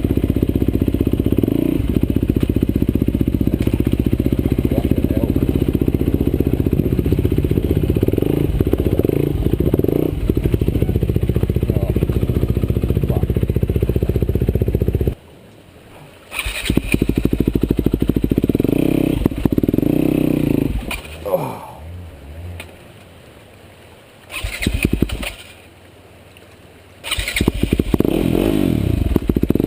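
Off-road motorcycle engine running steadily under load. About halfway through it drops away suddenly, then comes back in several short bursts of revving, the last one running on to the end.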